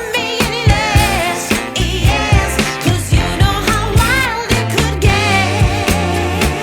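Background pop song with a steady drum beat, bass and a wavering singing voice.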